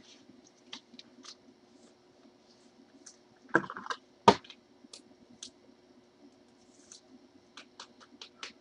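Scattered light clicks and taps from trading cards and packs being handled on a table, with a short rustle and one sharp knock about four seconds in, as something is set down on the table.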